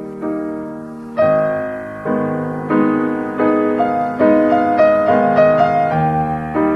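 Background piano music: notes and chords struck at an even pace, each fading after it is struck, a little louder from just over a second in.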